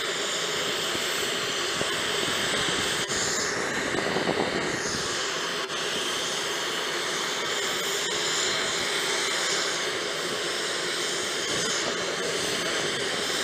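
Airport ramp noise: a steady high jet-turbine whine over a broad rush, with a louder swell and a falling sweep about four seconds in.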